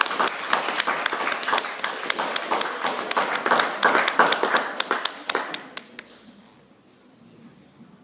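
A small group clapping, fast and uneven, dying away about six seconds in.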